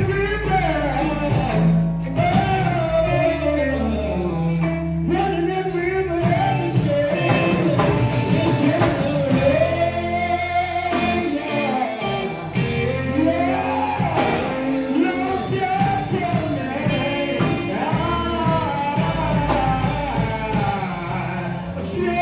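Male gospel vocal group singing live, a lead voice carrying the melody over a band with held low bass notes.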